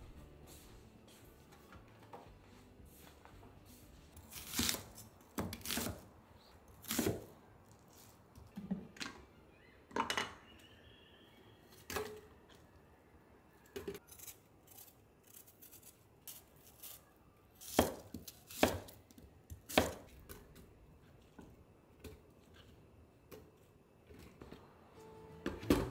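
Food-prep handling sounds: a series of irregular sharp knocks and clicks as chunks of onion and pear are cut and put into a blender jar.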